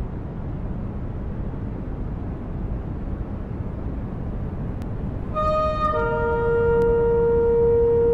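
A steady low rushing noise, then about five seconds in a shofar blast sounds. A second, lower shofar note joins it and is held steadily.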